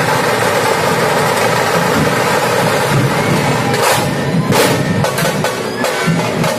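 Dhol-tasha drumming: a loud, dense, continuous din of drum rolls, with separate sharp strikes standing out from about four seconds in.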